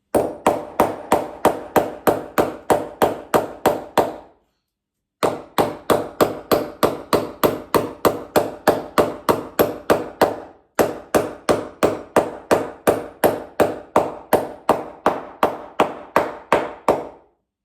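Hammer driving a corrugated fastener into an aerated-concrete wall to hold a crack together: quick, steady blows, about three a second, in three runs with two short pauses.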